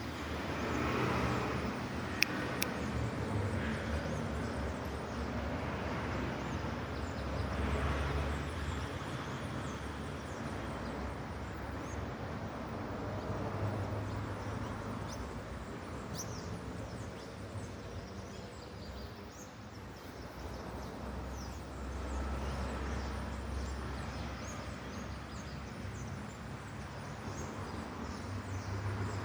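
Outdoor ambience: a low rumble that swells and fades every several seconds, with faint scattered high ticks and one sharp click about two seconds in.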